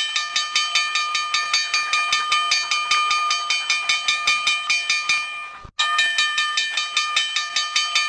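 Electric school bell ringing continuously, its clapper hammering the gong in a rapid rattle over a steady ringing tone. It cuts off briefly about five and a half seconds in, then rings again.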